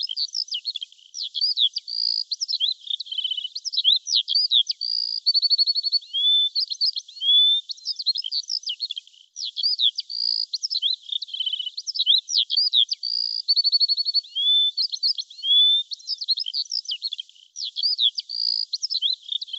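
Birds singing: a fast run of high whistled chirps, upslurred notes and short trills. The same phrase sequence repeats about every eight seconds, as a loop.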